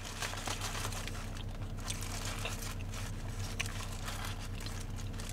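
A food wrapper crinkling and rustling in many small crackles as it is handled and opened, over a steady low hum.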